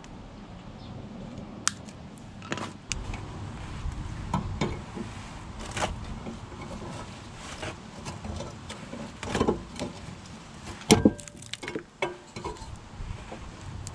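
Pliers working an old, rusted exhaust clamp under a car: irregular metal clicks, taps and knocks, with the loudest cluster late on.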